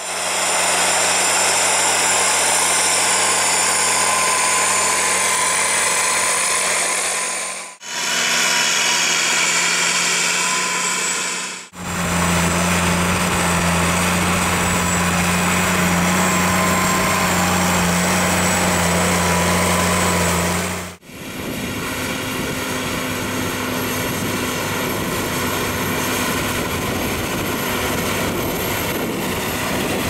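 Diesel engines of New Holland farm tractors running under load while pulling reversible mounted ploughs, in several clips cut together. Each clip has a steady engine drone whose hum changes pitch at the cuts, about 8, 12 and 21 seconds in.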